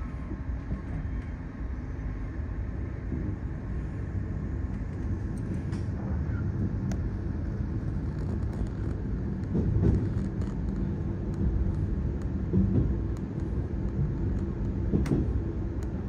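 Diesel railcar pulling away from a station, heard from inside the carriage: a steady engine drone and low rumble that grow a little louder, with a few sharp clacks of the wheels over rail joints in the second half.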